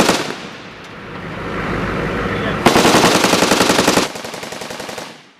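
Humvee-mounted M2 .50-calibre heavy machine gun firing: a loud report at the start that rings away, then a sustained burst of rapid automatic fire at roughly ten rounds a second, with a weaker rolling tail before the sound cuts off near the end.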